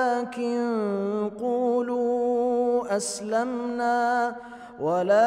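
A man reciting the Quran in melodic tajwid style, drawing out long sung notes that slide up and down in pitch, with a short break about three seconds in and a rising glide into the next phrase near the end.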